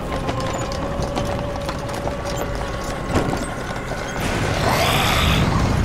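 Cartoon ice-magic sound effects: a run of crackling, tinkling clicks over a fading ringing tone, a sharp crack about three seconds in, then a louder rushing burst near the end as the ice cracks apart in a white flash.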